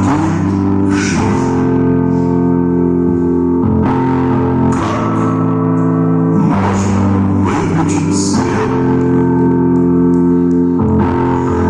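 Music led by guitar: sustained chords that change every second or two, at a steady level.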